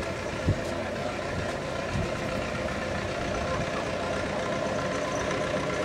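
Vehicle engine running steadily, an even drone that holds the same pitch throughout.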